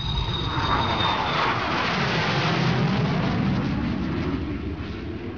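Boeing 737 jet airliner passing low overhead: a loud jet-engine rush that swells to its loudest a couple of seconds in and starts to fade near the end, with a high engine whine sliding down in pitch in the first second or so.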